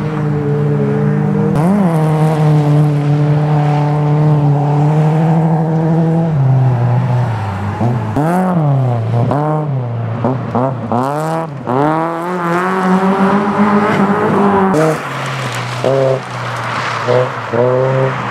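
Racing car engines on a gravel autocross track: a steady high drone, then quick rises and falls in pitch as a car lifts off and accelerates through a corner, with short throttle blips near the end.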